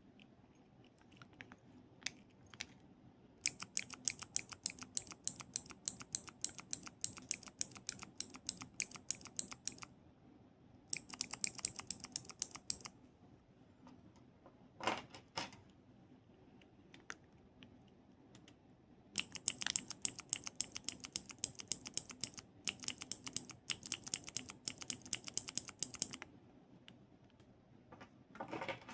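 Keyboard keys being typed in fast runs of clicks. There are three stretches of typing with pauses between them, and a softer single sound about halfway through.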